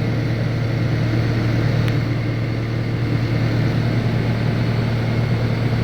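Kubota SVL97 skid steer's diesel engine idling steadily, a low, even hum.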